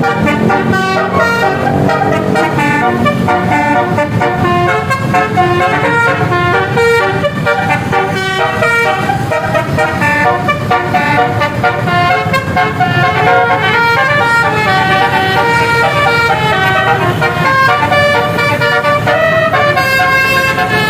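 Multi-tone "telolet basuri" bus air horn playing a running melody of steady, changing notes, with the bus's engine rumbling underneath.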